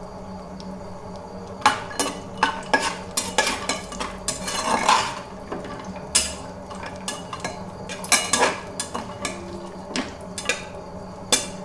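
A metal spoon scraping and clinking irregularly against the sides and bottom of an aluminium pressure cooker while stirring cashews and raisins frying in ghee, with a light sizzle of the hot ghee underneath.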